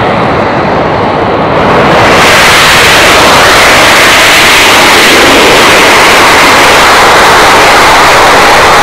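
Alenia Aermacchi M-346 jet trainer's twin turbofans at takeoff power during the takeoff roll: a loud jet roar that swells about two seconds in and then holds steady.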